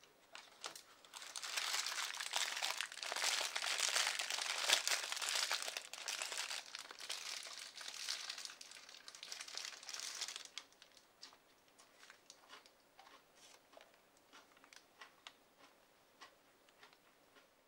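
A paper burger wrapper crinkles and rustles as a burger is handled in it. The crinkling is dense for about nine seconds, then thins to scattered light crackles.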